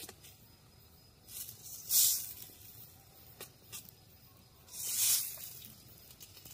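Steam hissing from a pot of boiling water under a steel momo steamer basket, in two short bursts about two and five seconds in, with a few light clicks of a spoon against the steel basket.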